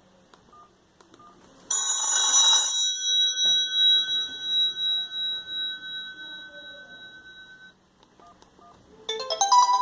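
A Sony Ericsson Z310i ringtone: a single bell-like strike with a noisy attack about two seconds in, ringing on in several high tones and fading, wavering, over about six seconds. A new melodic ringtone of quick stepping notes starts near the end.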